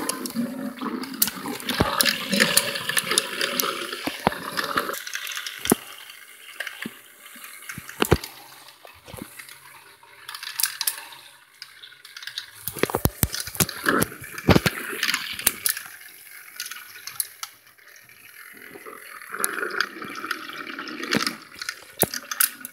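Water whirling in a tall glass spun into a vortex by a tornado-maker, a rushing swirl that is strongest for the first few seconds, drops about five seconds in and swells again near the end. Many sharp clicks and knocks run through it, thickest about thirteen to fifteen seconds in.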